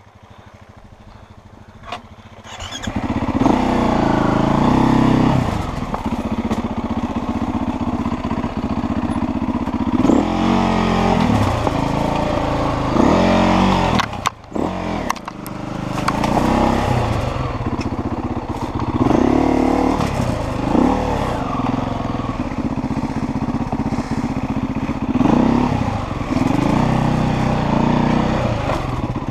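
Dirt bike engine revving under load on a rocky climb, the revs rising and falling again and again in short bursts. It is quiet for the first couple of seconds before the engine comes in, and it dips out for a split second about halfway through.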